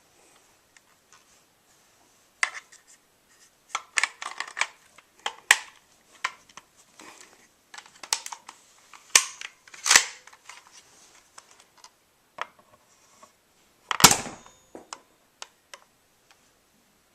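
Toy pistol being handled and worked, with a scatter of sharp mechanical clicks and snaps, then one louder pop of a shot about fourteen seconds in.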